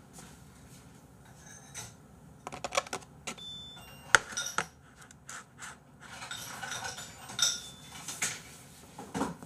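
Tableware handled on a table: a run of light clinks and knocks of dishes and cutlery, the sharpest about four seconds in, with softer rustling in between.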